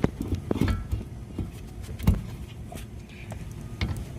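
Front brake caliper of a 2011 Scion tC being slid off the rotor and handled: a few metallic clunks and knocks, the loudest about two seconds in.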